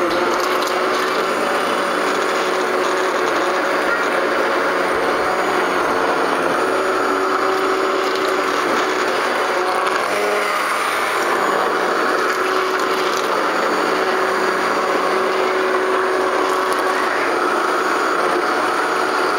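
Immersion blender running steadily as it purées cooked broccoli and potato soup in a steel pot: a continuous motor whir over churning liquid. The motor note wavers briefly about ten seconds in.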